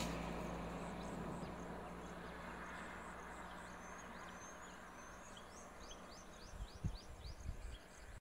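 A motor vehicle's engine fading away as it drives off, its low hum lingering faintly for several seconds. Over it a bird calls again and again in short, quick, falling chirps, and a few faint low thumps come near the end.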